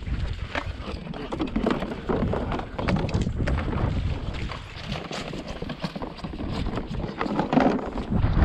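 Footsteps through grass and wheat stubble with rustling, and plastic full-body goose decoys being picked up and carried. Wind rumbles on the microphone, strongest at the start and near the end.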